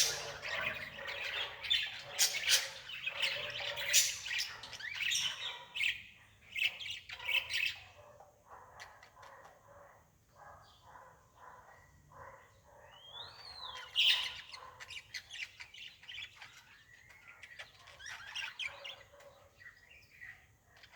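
Birds chirping and squawking in many short, high calls, busiest in the first several seconds, with one clear rising-then-falling call a little past the middle.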